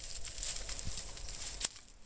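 A dog rooting with its nose through dry fallen leaves: a scattered crackling rustle, with one sharper crack near the end.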